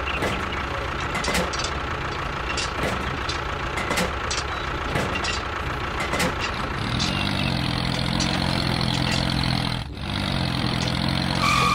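Tractor-like engine running steadily, with light clicks and taps from plastic and cardboard tubes being handled during the first half. From about seven seconds the engine hum becomes steadier, with a clear low pitch, and dips briefly near ten seconds.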